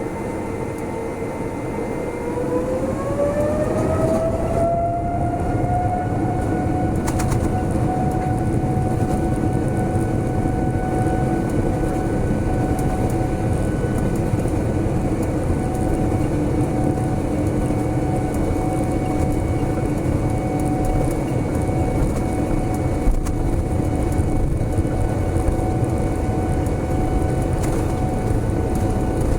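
Boeing 787-10 jet engines spooling up to takeoff thrust, heard from inside the cabin. A whine rises in pitch about two to six seconds in and then holds steady over the rumble of the takeoff roll, which grows louder as the whine climbs.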